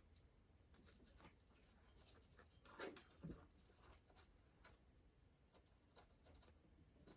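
Near silence with faint scratching and light taps as wood glue is worked down into a chip in a skateboard deck, with two slightly louder knocks about three seconds in.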